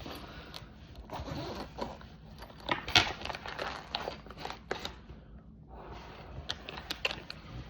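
A zipper being pulled open on a slingshot's carrying pouch, in two long scratchy pulls with sharp clicks and handling noise in between.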